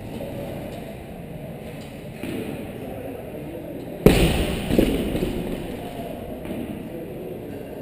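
Loaded barbell with black bumper plates dropped onto the rubber gym mats, landing with a loud slam about four seconds in and bouncing once more under a second later.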